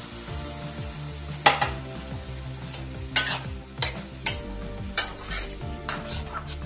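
Steel spatula stirring chopped ridge gourd in a steel kadai, with sharp clicks and scrapes of metal on the pan at irregular intervals, over the sizzle of the vegetables cooking with the freshly added water.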